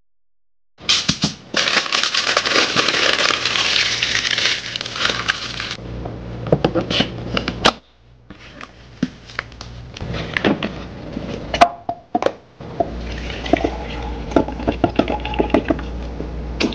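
Queso fresco grated on a metal box grater into a plastic container: a dense rasping scrape for about five seconds, then sharp clicks and knocks as the plastic lid is pressed on. Later, scattered kitchen knocks and clinks over a steady low hum.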